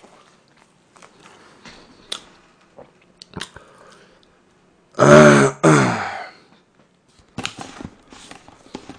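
A man clears his throat loudly in two pushes about five seconds in, in reaction to a mouthful of very sour cake. Faint clicks and taps of utensils on the cake come before and after.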